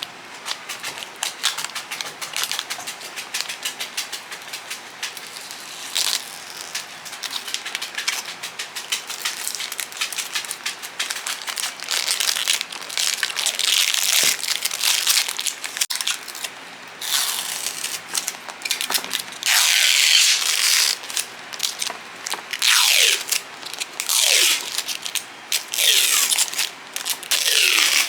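Plastic packaging being crinkled, handled and torn open in an unboxing, a dense crackling and rustling that grows louder about twelve seconds in.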